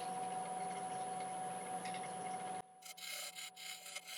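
Bowl gouge cutting a Monterey cypress bowl spinning on a wood lathe at 900 RPM, truing up the rim: a steady cutting hiss over the lathe's hum. About two and a half seconds in it drops out suddenly and gives way to short, broken cuts.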